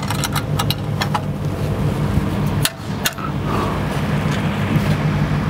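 Several sharp metal clicks as the side latches of the diamond wire guillotine saw's aluminium frame are undone, over the steady hum of an engine running.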